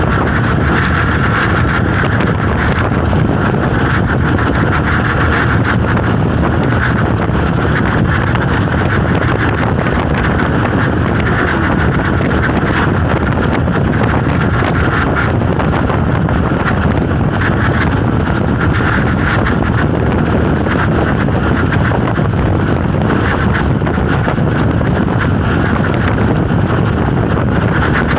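Steady running noise of an open-sided passenger vehicle under way, engine and tyre-on-road noise together, with wind buffeting the microphone.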